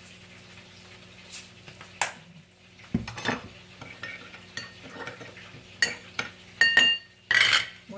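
A spoon stirring a dipping sauce in a small bowl, clinking against the bowl: scattered sharp clinks, some with a short ringing tone, coming closer together and louder near the end.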